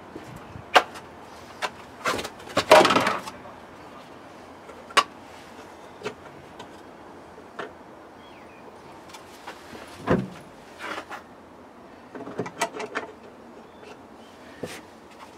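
Hard plastic interior trim pieces of a 1988 Austin Maestro being handled and set in place: scattered clicks, knocks and rattles, loudest in a short clattering run about two to three seconds in, with a low thump about ten seconds in and a quick series of small clicks a couple of seconds later.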